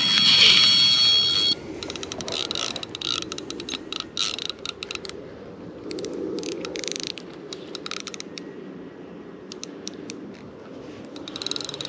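Electronic carp bite alarm sounding a steady high tone that cuts off about a second and a half in, signalling a run. It is followed by a fishing reel's mechanism clicking and ticking irregularly as the hooked carp is played.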